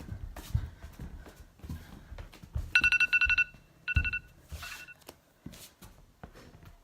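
A phone ringing with a rapid electronic trill at one steady pitch, in two short bursts about a second apart, with a faint third near the end. Scattered low thuds sound around it.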